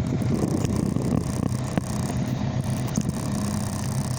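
Cat 308 excavator's diesel engine running steadily, heard from inside the cab, with a few light clicks and rattles.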